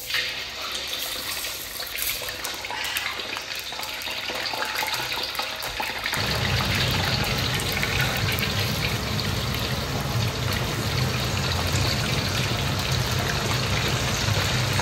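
A steady rushing, hissing noise like running water or sizzling. About six seconds in, a low rumble joins it and it grows fuller and a little louder.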